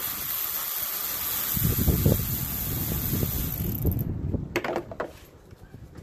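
Cordless electric ratchet running for about four seconds, spinning out a coil-pack hold-down bolt, with a low rattle joining about halfway through; it stops suddenly and a few light clicks follow.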